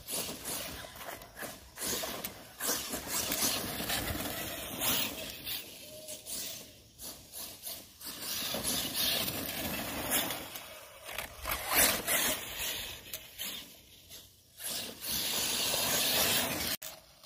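Arrma Talion RC truck with a 1700 kV brushless motor, driving across the yard. The motor and tyres make a noisy hiss that swells and drops several times as it speeds up and lets off.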